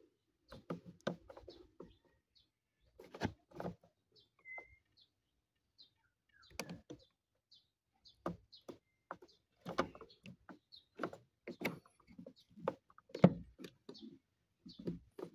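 Irregular hard plastic clicks and knocks as a small bushing is handled and pressed onto the pin of an automatic transmission shifter's cable linkage, the sharpest knock near the end.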